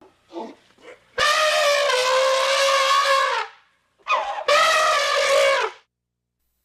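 Elephant trumpeting: two short faint calls, then two long, loud, brassy trumpet blasts held at a steady pitch, the first about two seconds long and the second just over a second.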